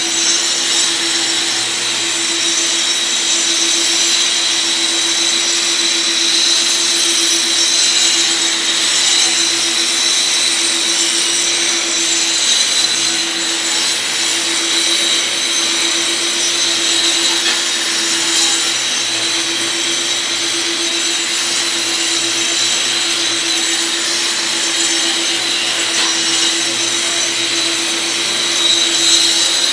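Angle grinder with a dust shroud and vacuum hose grinding thinset mortar off a concrete floor: a steady motor hum under a continuous grinding hiss, held at an even pitch as the tool is worked across the slab.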